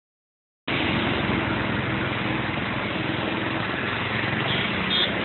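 Steady engine and traffic noise with a low hum and a faint steady engine tone, starting under a second in after a brief silence.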